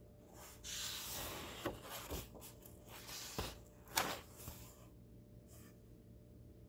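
Paper pages of a book being turned by hand: rustling for about four seconds with several sharp flicks of paper, the loudest about four seconds in.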